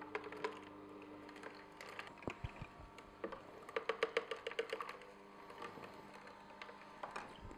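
Frozen berries clicking and rattling as they are spooned into the feed chute of a running Omega Sana EUJ-707 auger juicer. A quick run of clicks comes about four seconds in.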